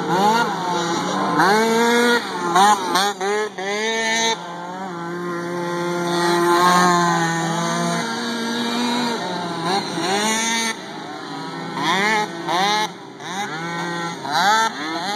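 Several small mini quad engines racing together, each revving up and dropping back over and over, so that overlapping whines keep rising and falling; about five seconds in, one holds a steadier pitch for a few seconds.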